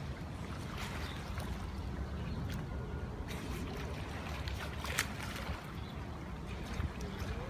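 Open-air ambience at a sea lion pool: water lapping and sloshing over a steady low rumble, with a sharp click about five seconds in.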